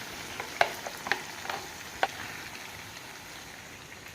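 Turmeric, cumin and ginger pastes frying in hot ghee in a pan, sizzling steadily as they are stirred, with a few sharp clicks in the first two seconds.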